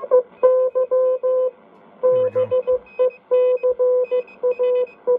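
Morse code (CW) coming through the speaker of a Lafayette HE-80 communications receiver: a steady low-pitched beat note keyed on and off in dots and dashes, with a fainter, higher-pitched second CW station keying at the same time. The CW tone is clean, not raspy or gritty, after modifications made to improve the receiver's CW audio.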